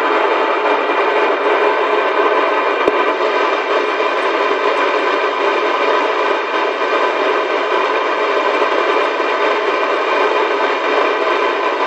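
Loud, steady static-like hiss with no low rumble under it, and a single faint click about three seconds in.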